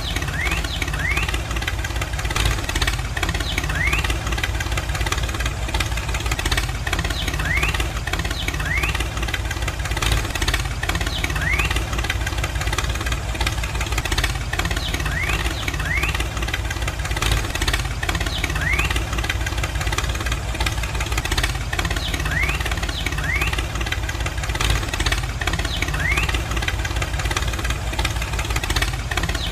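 Tractor engine idling with a steady knocking rumble, with short rising chirps now and then over it.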